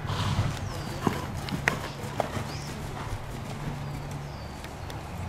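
A horse's hoofbeats on the soft sand footing of a covered arena, as the horse is ridden through a dressage test, with a few sharper clicks between about one and two seconds in.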